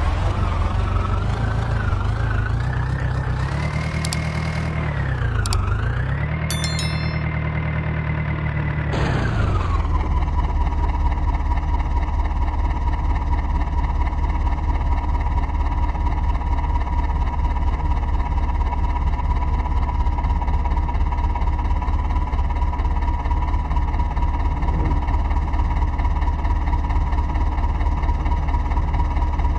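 Heavy diesel engine revved up, dipping and rising again, then dropping back about nine seconds in to a steady run at constant speed.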